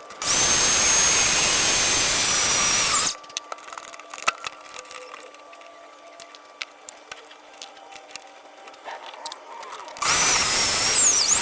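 Electric power tool, such as a drill, running at high speed in two bursts, the first about three seconds long and the second about two, with light taps and handling noises in between. Its whine dips in pitch during the second run, as if it is taking load.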